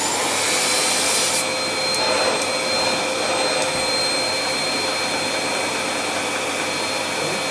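Amazon Basics 700 W bagless cylinder vacuum cleaner motor just switched on, spinning up with a rising whine in the first second, then running steadily with a high whine over the rush of air.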